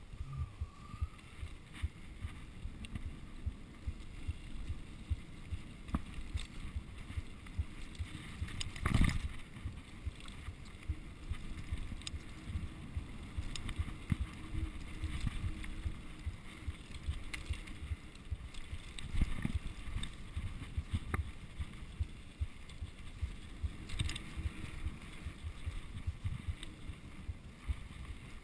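Mountain bike rolling down a dirt singletrack: rumbling tyre noise and wind, with irregular knocks and rattles as the bike goes over bumps, and one harder jolt about nine seconds in.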